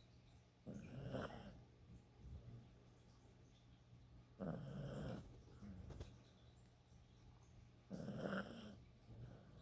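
Dog snoring in its sleep: three snores, each under a second long, about three and a half seconds apart.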